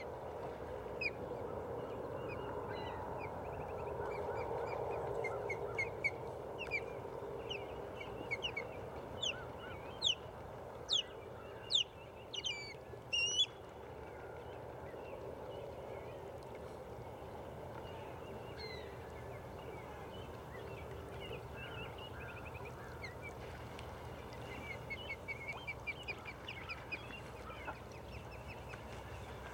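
Wild birds calling: many short chirps and sharp rising notes, loudest in a run about ten to thirteen seconds in, and a rapid chattering trill near the end, over a steady background rush.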